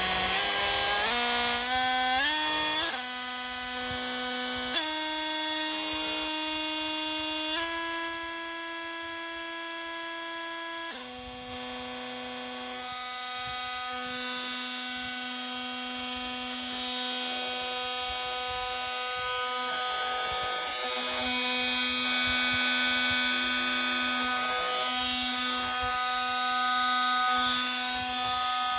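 Milwaukee M18 Fuel 2836 brushless oscillating multi-tool running free with its blade in the air, a steady high whine. Its pitch steps up several times over the first eight seconds as the speed setting is raised, then drops a step about eleven seconds in and holds steady.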